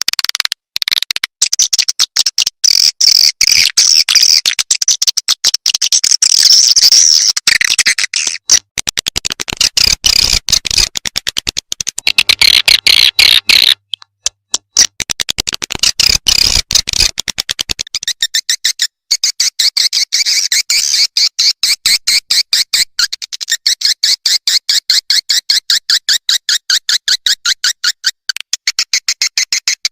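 Recorded swiftlet calls played as a lure sound: rapid, high, clicking chirps repeated without a break. Partway through they settle into a steady, even pulse of about five chirps a second.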